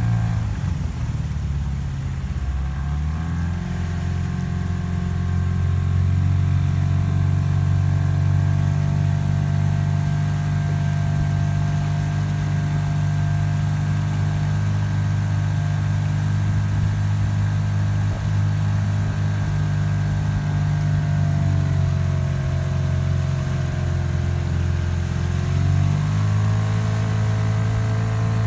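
Outboard motor of a coach's launch running steadily at low speed. Its pitch rises a few seconds in, sags a little past two-thirds through, then picks up again near the end.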